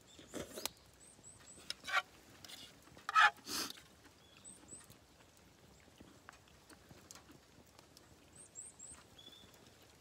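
Ramen noodles slurped from a small metal camping pot: a few short, loud slurps in the first four seconds. After that only faint scattered crackles from the small wood fire.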